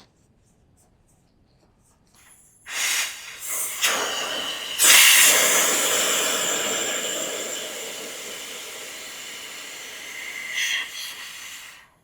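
Compressed air venting from an air compressor line: a few short spurts of hiss, then a long blast that starts loud and slowly fades, one more spurt, and a sudden cut-off.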